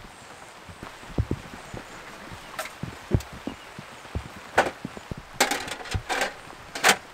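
Irregular soft thuds throughout, with several sharper, brighter knocks or cracks in the second half; the loudest comes near the end.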